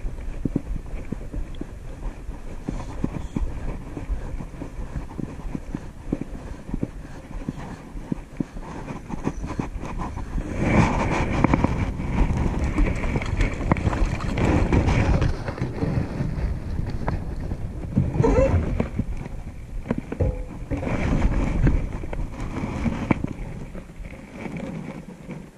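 Wind buffeting the microphone outdoors, a rough, uneven rumble that swells louder in the middle.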